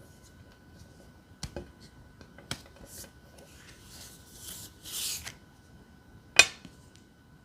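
Tarot cards being handled in a close-miked ASMR recording: soft sliding and rubbing of cards for a couple of seconds, with a few sharp taps and clicks, the loudest near the end.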